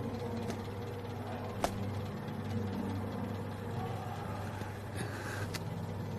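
Low steady hum, like room tone, with a few faint short clicks scattered through it.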